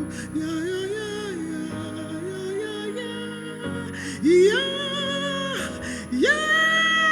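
Worship music: a wordless sung or hummed melody over sustained chords, with two long held notes in the second half.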